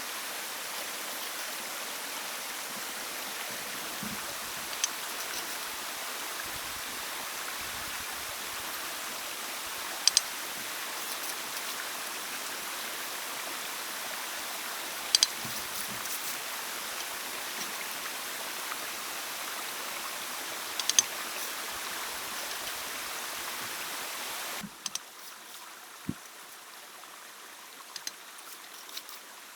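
Steady rush of running water, with a sharp click or knock about every five seconds. Near the end the water noise drops suddenly to a quieter level, and a few fainter clicks follow.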